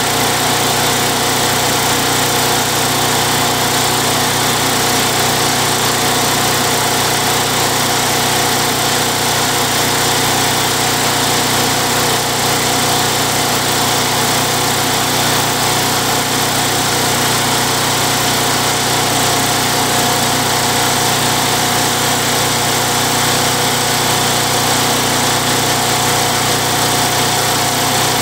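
Tecumseh 92cc single-cylinder four-stroke engine of a Craftsman Eager 1 push mower running steadily at speed. It holds an even pitch and level with no surging, a sign that the surge has been repaired.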